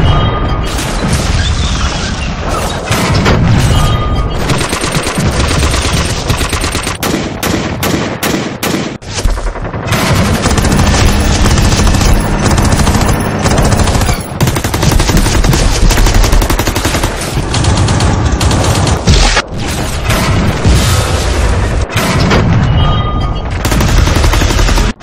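Battle sound effects: loud, dense automatic gunfire, machine-gun and submachine-gun bursts overlapping almost without a break, with a run of separate single shots a little past a quarter of the way in.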